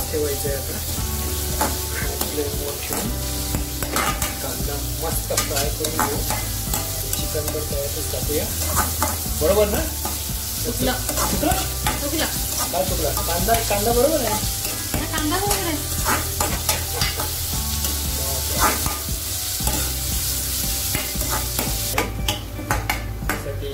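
Chopped onions sizzling in oil in an aluminium kadai, with a steel ladle stirring and scraping against the pan. The frying hiss drops away near the end.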